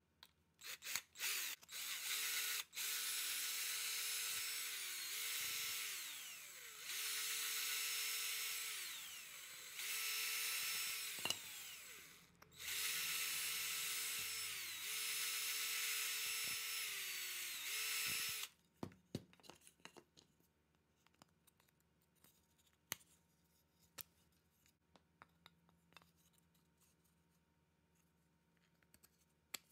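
Cordless drill driving a twist bit into a wooden board: a few short trigger blips, then long runs of motor whine whose pitch sags and recovers as the bit bites, stopping about two-thirds of the way through. Light clicks and knocks follow.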